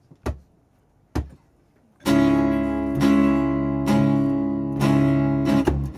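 Acoustic guitar and bass guitar starting a song: two short taps, then full strummed chords ring out from about two seconds in, struck again about once a second.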